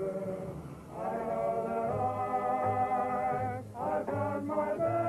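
A song with a group of voices singing long held notes over a steady low beat.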